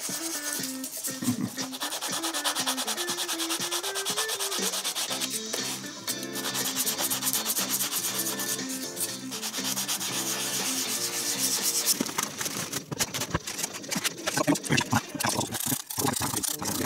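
Fast back-and-forth rubbing strokes of a small sanding stick along the edge of a Depron foam sheet, sanding a shallow bevel into a model wing's trailing edge. The strokes turn choppier and more irregular about two-thirds of the way through.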